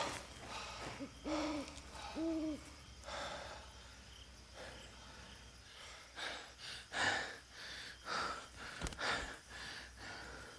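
An owl hooting, two arched hoots a second apart in the first few seconds, followed by several short breathy noises.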